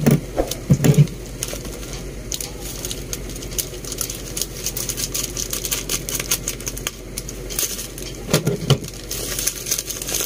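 A plastic courier parcel bag crinkling and rustling as it is cut open with scissors and handled, with a few dull knocks near the start and again about eight seconds in.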